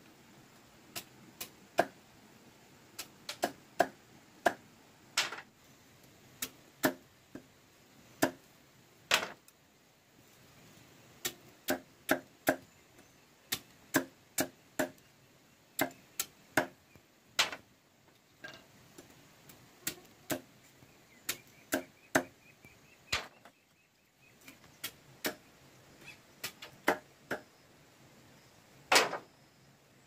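Machete chopping and trimming split bamboo strips: a string of sharp knocks, one or two a second, in runs with short pauses and a brief gap about two-thirds through.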